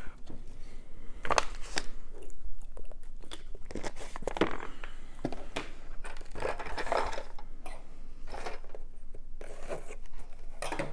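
Rustling and crinkling of packaging with irregular light clicks and scrapes as plastic miniature sprues and their box are handled.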